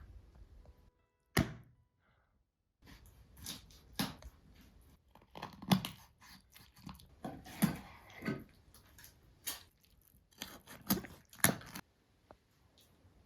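Hand food-preparation sounds in a small kitchen: a single sharp knock, a short dead gap, then a run of about a dozen irregular knocks and crunchy handling noises that stops about a second before the end.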